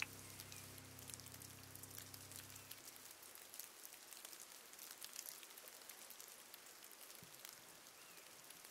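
Faint patter of water in a shallow stream: many small, scattered plinks and drips.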